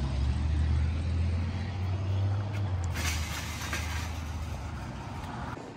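A motor vehicle's engine running with a low, steady hum that fades and stops near the end, with a short hiss about three seconds in.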